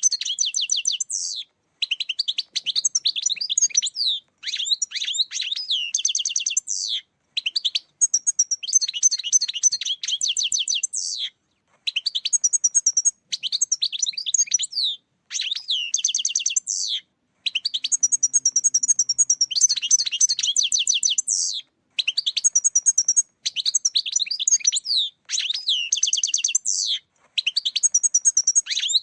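European goldfinch song: fast, tinkling, twittering phrases of one to three seconds each, one after another with short breaks. It is a recorded goldfinch song played as a lure call to draw in wild goldfinches.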